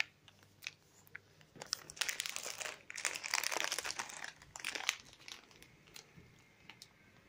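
Plastic M&M's candy bag crinkling in a hand, in several bursts with short pauses between.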